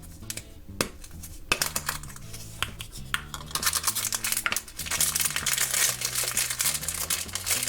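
Coins clinking into a toy vending machine and the machine clicking and rattling as it turns and dispenses a blind bag, over soft background music.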